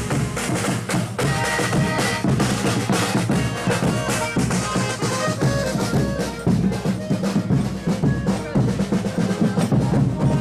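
Folia de Reis music: a large bass drum beaten with a stick in quick, steady strokes, with an accordion playing along.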